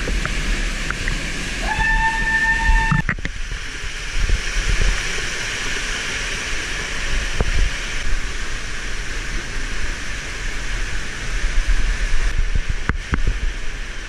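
Rushing water of a canyon stream and waterfall. About two seconds in, a single whistle sounds, sliding up briefly and then held for about a second.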